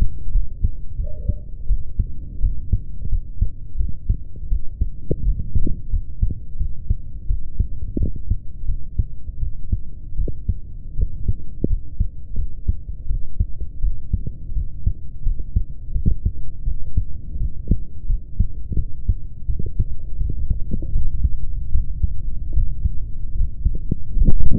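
A person's heartbeat recorded up close: a continuous run of low, muffled thumps over a steady low rumble, with nothing above the low range.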